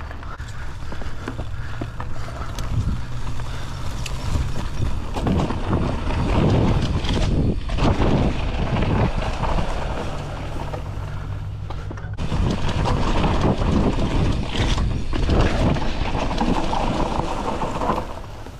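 Wind rushing over the microphone and the tyres of a Polygon Siskiu T7 mountain bike rolling over a dirt trail and then grass. The rumble grows louder about five seconds in as the bike picks up speed.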